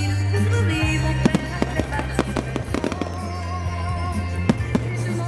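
Fireworks going off in many sharp bangs and crackles, over loud music with a steady bass line.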